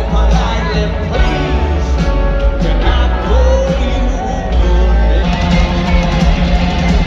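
Live rock band playing a song through a stadium PA, with the lead singer's vocal over guitars, drums and heavy bass, recorded from among the crowd.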